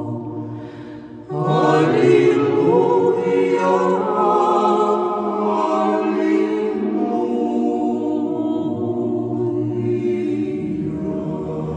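Choir singing slow a cappella chant over a low held bass line. The voices thin out about a second in, then the full choir comes back in louder and holds on long sustained chords.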